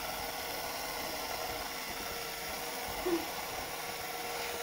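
Small LEGO electric motor running steadily, turning a glass jar of soapy water with a rag inside in a home-built toy washing machine. A brief vocal sound comes about three seconds in.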